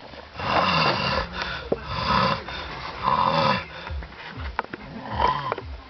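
Loud, rasping snoring: about three heavy snores in the first three and a half seconds, then softer, shorter snuffling breaths.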